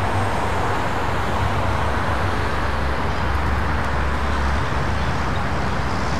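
Construction-site machinery running: a steady low engine hum under a constant rushing noise that keeps an even level throughout.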